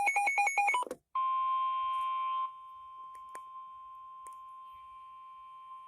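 A ringing electronic warble cuts off just before a second in. Then a steady NOAA Weather Radio alert tone of about 1050 Hz sounds, the signal that a weather warning is about to be broadcast. It is loud for about a second and a half, then drops sharply in level and carries on as a steady tone.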